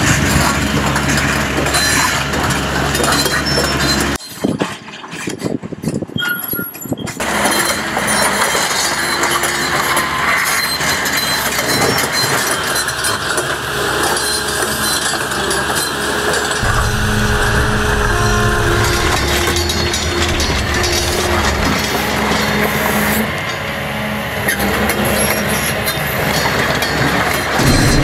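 Doosan DX235 crawler excavator running steadily as it drags a cable plough through stony roadside ground. The sound drops away for about three seconds, about four seconds in.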